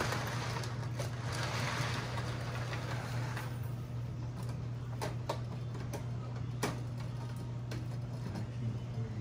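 O-gauge three-rail toy train rolling on the layout track over a steady low electrical hum, stopping about three and a half seconds in. After that the hum goes on with a few scattered clicks.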